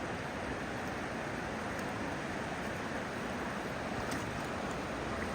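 Floodwater from the Verde River rushing steadily.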